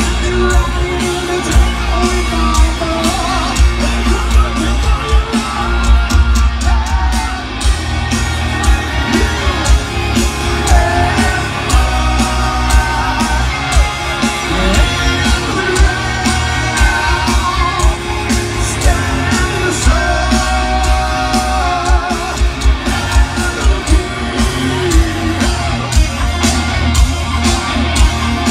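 Heavy metal band playing live through a large outdoor festival PA, heard from inside the crowd: distorted guitars and a melody over a steady, heavy drum beat.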